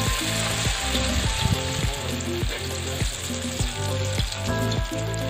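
Chopped food sizzling steadily in hot oil in a steel wok, stirred with a metal spatula.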